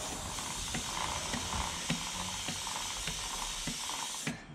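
Aerosol chain degreaser hissing as it is sprayed onto a motorcycle's drive chain and rear sprocket, with irregular light clicks from the chain as the rear wheel is turned by hand. The spray stops near the end.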